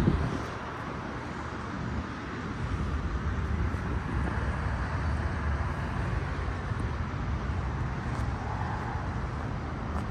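Steady low outdoor background rumble with no distinct events, opening with a brief louder bump.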